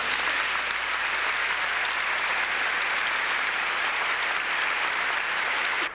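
Audience applauding steadily after a choir piece, cut off suddenly near the end.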